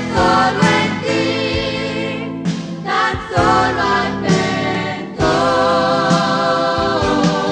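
Background music: a Christian song with a choir of voices singing over instrumental accompaniment, in sung phrases broken by short breaks.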